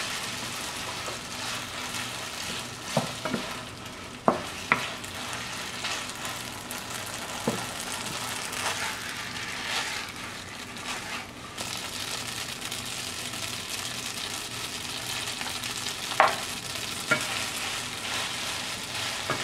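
Spaghetti in sauce sizzling in a nonstick frying pan as it is stirred and tossed with a wooden spatula: a steady frying hiss with about seven sharp knocks of spatula and pan.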